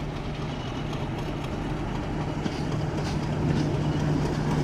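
Class 35 Hymek diesel locomotive running with a steady low engine drone, growing louder as it approaches.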